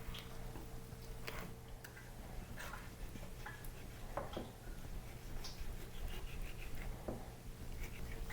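Faint scattered clicks and taps of a knife and hands working raw tilapia fillets on a cutting board, over a steady low electrical hum.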